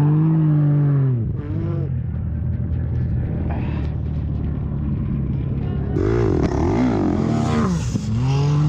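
Honda CRF450R dirt bike's single-cylinder four-stroke engine revving up and down as it is ridden through sand, the pitch dropping and climbing with throttle and shifts. From about 6 s a second engine, a sand car's, runs close alongside, its pitch rising and falling over the bike's.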